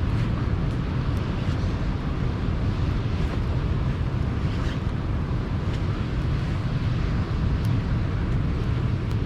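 Steady surf of sea waves on the shore, with wind rumbling on the microphone. A few faint pops from a crackling campfire come through now and then.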